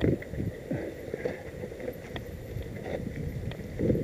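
Mountain bike riding over a rocky dirt singletrack, its tyres, chain and frame rattling and knocking over the bumps, with a heavy jolt at the start and another near the end.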